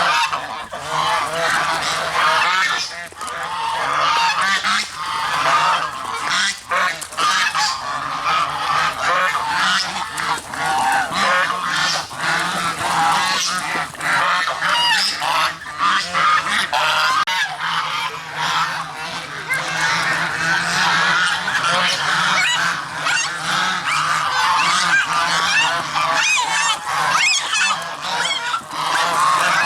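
A flock of geese honking without pause, many calls overlapping.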